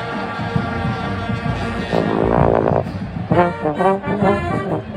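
Marching band brass playing loudly: held chords, a wavering shake about two seconds in, then a series of short punched chords.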